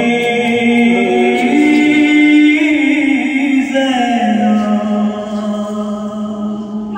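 A man singing an Urdu marsiya (elegy) unaccompanied into a microphone, in long held notes that step up in pitch about one and a half seconds in and settle lower about four seconds in.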